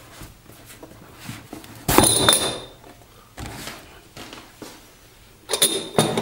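Cardboard shipping box being handled and shifted on a table: two brief scraping, knocking bursts, one about two seconds in and one near the end, with faint handling rustle between.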